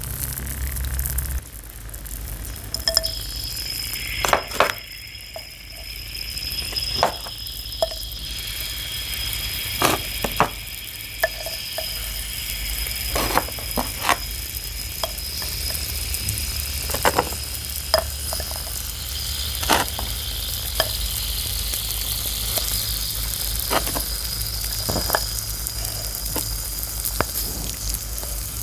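White chalk blocks soaking in a glass bowl of water, fizzing and crackling steadily as air bubbles out of them, with sharp clicks and taps every second or two as blocks are set into the bowl.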